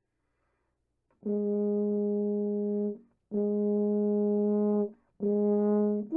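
Wessex Berg F tuba played: three long, steady notes on the same pitch, starting about a second in, each held for a second or two with short breaks between.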